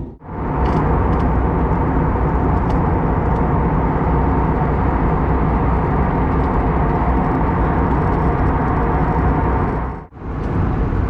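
Steady cabin noise of an Airbus A321neo in flight: a constant rush of airflow and jet engine noise with a faint steady hum. It drops out briefly just after the start and again near the end.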